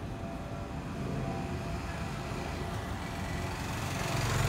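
Airbus A320-216's CFM56 jet engines heard from the ground as the airliner passes overhead: a steady rumble with a faint whine, growing louder near the end.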